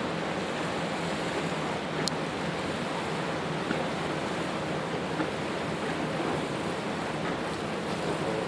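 Steady rush of water and engine hum aboard a boat underway, with a brief click about two seconds in.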